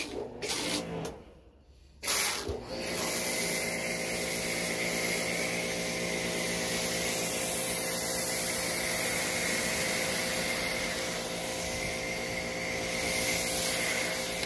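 Electric Karcher K1900 pressure washer (1900 PSI, 1.3 GPM) running with a foam cannon attached. Its motor hums steadily under the hiss of soap foam spraying onto a car hood, starting about two seconds in.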